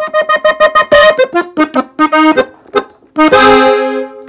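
Gabbanelli button accordion in F playing a norteño fill in E-flat: a quick run of short repeated notes, a few brief phrases, then a held chord about three seconds in that fades away just before the end.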